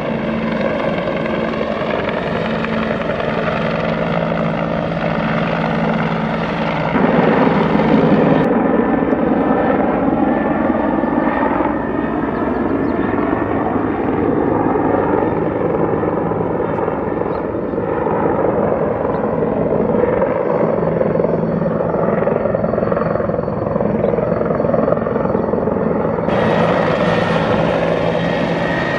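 Bell 412 four-bladed twin-engine helicopter flying past, with a steady beat of rotor and turbine whose pitch slowly rises and falls. The sound changes abruptly about seven seconds in and again near the end, at cuts between different passes.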